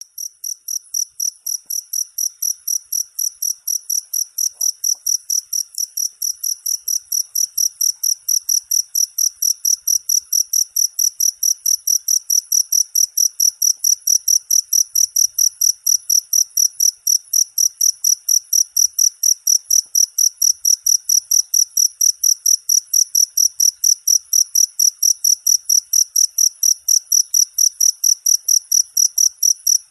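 Cricket chirping in a steady, even rhythm, about four high-pitched chirps a second, growing louder over the first several seconds.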